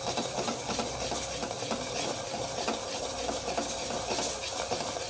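A metal spoon stirring thick turmeric masala in oil in an aluminium pot, the masala sizzling with a steady hiss and the spoon scraping in small ticks.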